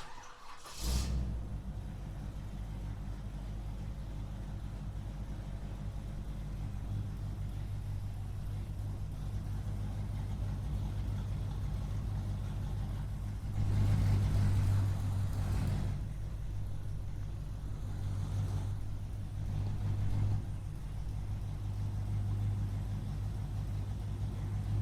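Muscle car engine started: a short crank that catches about a second in, then a steady low idle. The throttle is blipped into a longer rev about halfway through, followed by two shorter blips a few seconds later.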